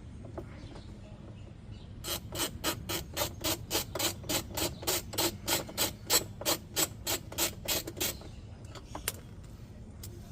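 Hand ratchet clicking steadily, about four clicks a second for some six seconds, as it undoes a bolt; a few stray clicks follow near the end.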